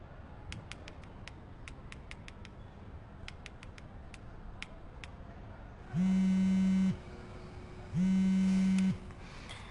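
Smartphone touchscreen keyboard clicking as a message is typed: a quick, uneven run of small taps. Then the phone buzzes twice, a steady buzz about a second long each time with a second's gap, as a call comes in.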